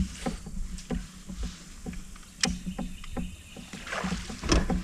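Small ticks and knocks from fishing gear aboard a kayak, with a sharp click about halfway and a louder rushing sound near the end.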